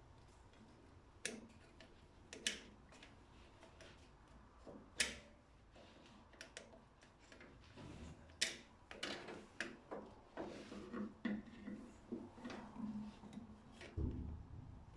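Sharp clicks and taps of a pin being worked out of the starter-switch linkage on a Ferguson TED20 tractor. A few single clicks come in the first half, then quicker, lighter taps in the second half, with a duller knock near the end.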